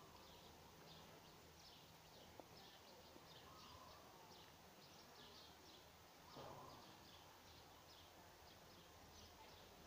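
Quiet outdoor ambience with a faint, steady run of short high chirps, about two to three a second, and one brief louder call about six and a half seconds in.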